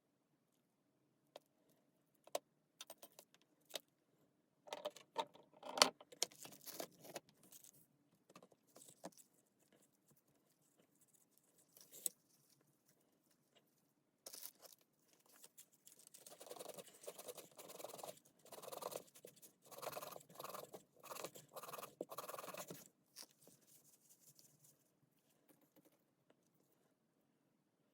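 Metal parts and tools clinking and scraping during hands-on work on a cordless drill, in scattered sharp clicks and short rattles. Past the middle comes a longer run of rapid scraping and rattling.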